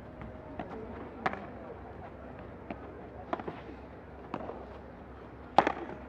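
Padel ball hit back and forth with rackets in a rally: sharp pops about once a second, the loudest near the end, over a low murmur of voices.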